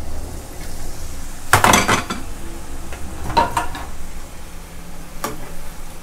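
Battered skewered meatballs deep-frying in hot oil, a steady sizzle. Utensils clatter against the pan in a burst of quick knocks about one and a half seconds in (the loudest moment), again around three and a half seconds, and once more near the end.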